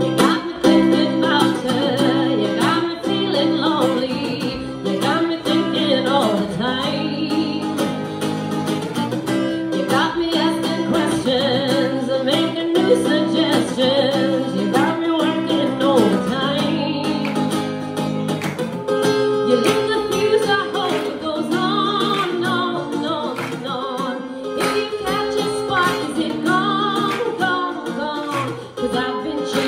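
Live acoustic band: a woman singing a song over strummed acoustic guitars.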